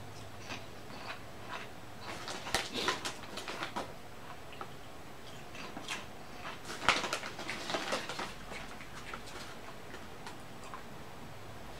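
Potato chip crunching as it is chewed: a cluster of crisp crunches about two seconds in and another, louder cluster about seven seconds in.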